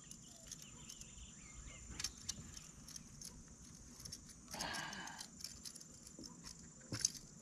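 Faint metallic clicks and jingles of a fishing lure and its hooks being handled as a hooked bass is unhooked by hand, with a brief rush of noise about four and a half seconds in.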